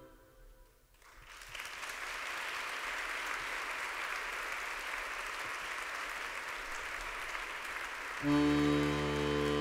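Audience applauding: the applause starts after about a second of near silence and then holds steady. About eight seconds in, live instruments start playing again with held notes over a low bass line.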